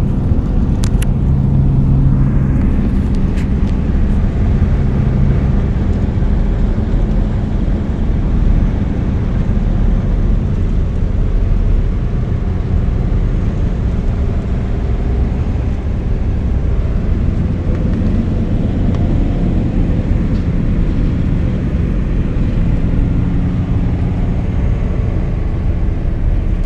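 Steady road noise inside a car at highway speed: a continuous low drone of tyres and engine.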